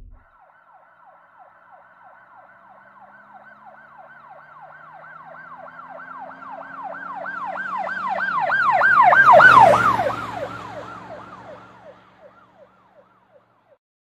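Emergency vehicle siren with a fast rising-and-falling yelp, about three to four cycles a second, growing louder as it approaches, loudest about nine and a half seconds in as it passes, then fading away.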